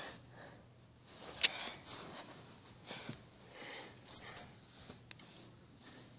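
Faint rustling with a few light sharp clicks: handling noise from a handheld camera being moved about.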